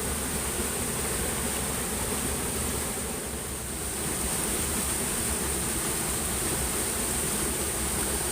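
Steady rush of flowing stream water, with a steady high hiss over it.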